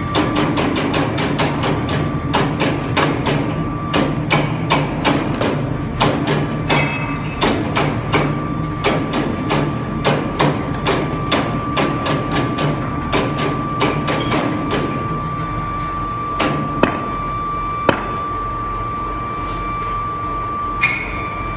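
Foundry machinery: a steady hum with a thin high whine under rapid, evenly spaced clicking, about three or four clicks a second. The clicking stops about fifteen seconds in, leaving the hum and a few single sharp knocks near the end.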